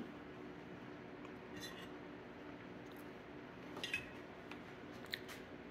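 Quiet room tone with a few faint clicks of a metal fork against a ceramic plate, about two-thirds of the way in and again near the end.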